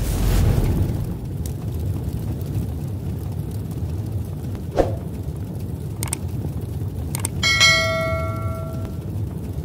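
A steady low rumble with a few faint clicks. About seven and a half seconds in, a piece of metal is struck once and rings like a small bell, several clear tones fading over a second and a half.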